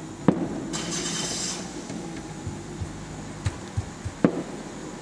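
Distant fireworks shells bursting: two sharp bangs about four seconds apart, with a few softer thumps between them.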